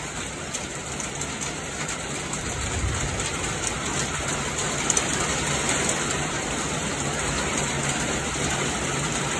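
Heavy storm rain pouring down, getting louder over the first three seconds and then steady.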